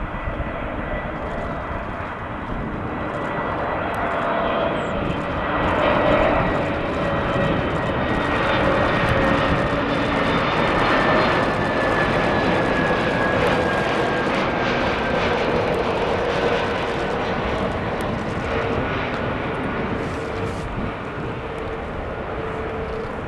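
Airbus A321neo's CFM LEAP-1A turbofan engines on final approach at low thrust: a steady jet rumble with a high whine. The sound swells as the airliner passes close by, then eases, and the whine slides slowly lower in pitch as it goes by.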